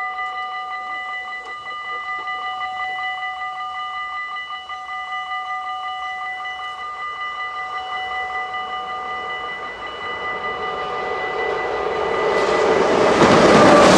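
Dutch level-crossing warning bells ringing rapidly and steadily. From about eleven seconds in, a passing train's rushing noise builds, drowns the bells and is loudest near the end.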